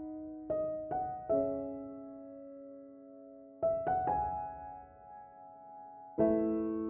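Background music: soft, slow piano notes struck a few at a time, each left to ring and fade.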